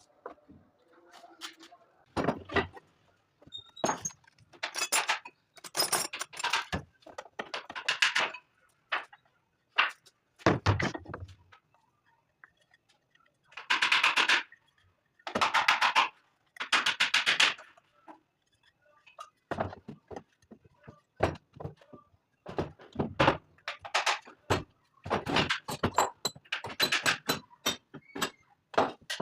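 Wood being worked and handled: irregular knocks, taps and clatters, with three short rasping strokes in the middle.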